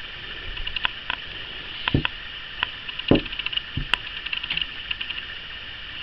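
A few soft knocks and clicks over a steady hiss, the loudest a dull thump about three seconds in.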